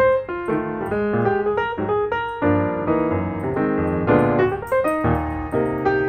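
Piano music: a melody of quick notes over lower bass notes.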